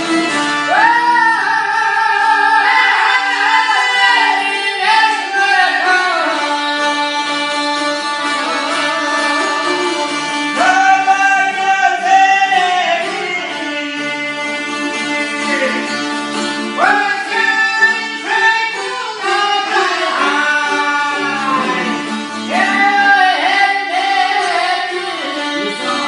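A man sings an Albanian folk song in long, wavering phrases, accompanied by long-necked plucked lutes strummed steadily underneath.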